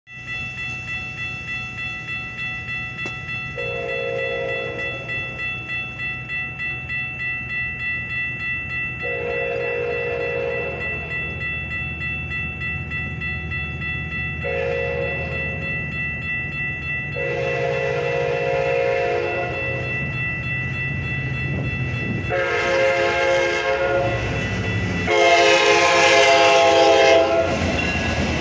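Metra commuter train's locomotive horn sounding a long, long, short, long grade-crossing signal, then two more blasts, the last ones loudest as the train nears. Under it a crossing warning bell dings about twice a second, and the train's low rumble grows.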